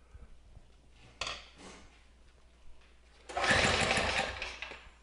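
Small engine being pull-started with its recoil starter rope: a brief pull about a second in, then near the end a hard pull that turns the engine over fast for about a second and a half without it catching.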